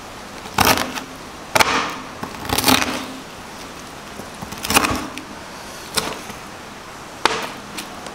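Kitchen knife chopping crispy roast pork belly on a cutting board: the crackled skin crunches under each stroke and the blade knocks on the board, about seven irregular cuts a second or so apart.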